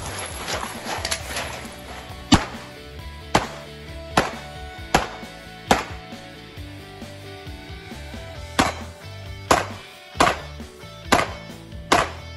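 Pistol shots in two strings of five, about one every 0.8 seconds, with a pause of roughly three seconds between the strings as the shooter moves position. Background music plays under the shots.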